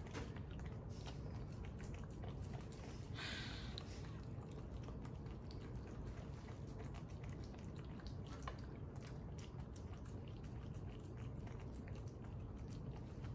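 Cavachon puppy eating a small dog birthday cake: faint, irregular chewing and biting clicks, with a brief hiss about three seconds in, over a steady low hum.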